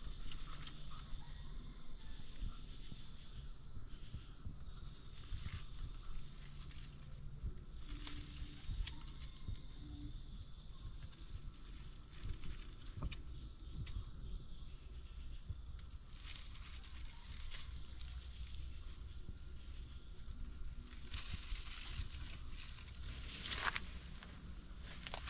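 A steady, high-pitched chorus of insects with a fast trilling pulse, over faint rustling of ferns and leaves being handled; a brief louder noise near the end.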